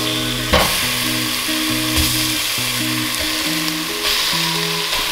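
Raw chicken pieces sizzling as they go into hot oil with sautéed onion and ginger in a stainless steel pot, with a sharp knock about half a second in as a piece lands or the spatula hits the pot. Background music with held notes plays under it.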